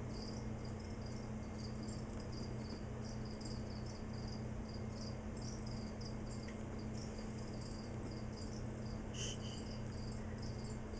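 Crickets chirping steadily in short, high, irregular pulses over a low electrical hum, with one louder chirp near the end.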